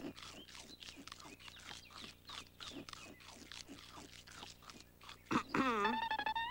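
Cartoon bears munching sandwiches: rapid crunching chews, several a second. Near the end comes a louder drawn-out vocal sound whose pitch dips and then rises.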